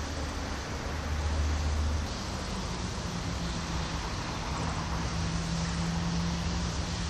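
Steady background noise of vehicle engines and traffic. A low engine hum fades out about two seconds in, and a higher steady engine hum comes in about a second later and runs on.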